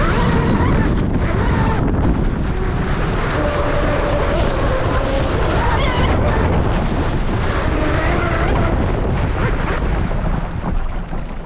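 Onboard sound of a Pro Boat Blackjack 42 RC catamaran at speed: the brushless electric motor whining, its pitch wandering up and down with the throttle, over a loud rush of water and wind on the boat-mounted camera. The sound falls away near the end.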